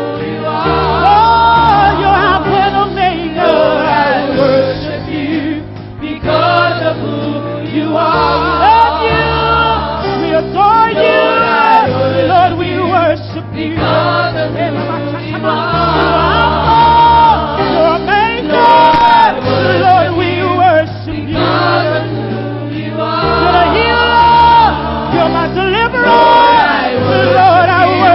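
Live gospel praise team and choir singing a worship song with band accompaniment, over a bass line that changes note every couple of seconds.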